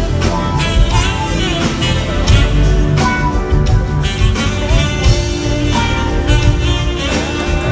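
Live smooth-jazz band playing: drums and bass keeping a steady beat under electric guitar and keyboards.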